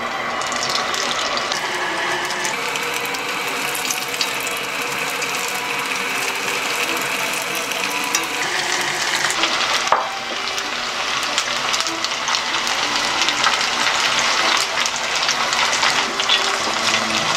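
Raw gyoza deep-frying in a pot of oil, which sizzles and crackles steadily as the dumplings are added.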